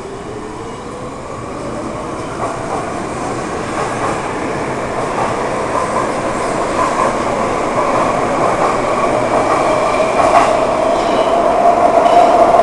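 RET Type-T electric metro train pulling out of an underground station: the traction-motor whine rises in pitch as it accelerates, over the rumble and clatter of the wheels. A steadier high-pitched whine grows louder near the end.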